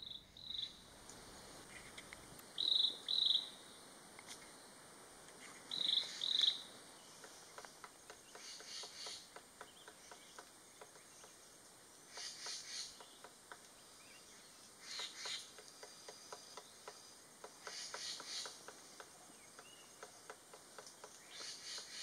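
Faint forest ambience. In the first seven seconds come a few short high calls, one on its own and then two pairs. After that, short bursts of rapid ticking come every few seconds over a steady thin high insect hum.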